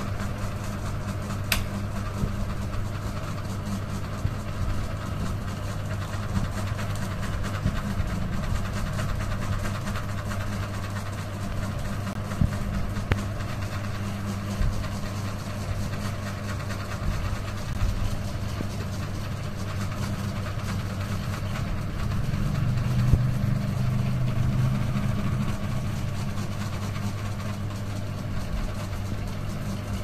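Three-blade ceiling fan running at speed: a steady low motor hum with faint irregular ticking, swelling a little louder for a few seconds past the middle. A single sharp click about a second and a half in.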